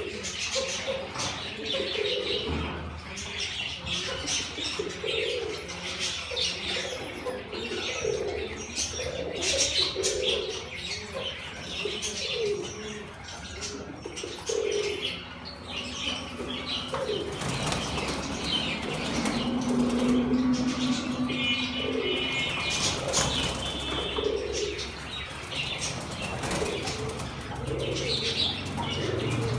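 Caged domestic fancy pigeons cooing over and over, with bursts of wing flapping inside the cages and some higher chirps.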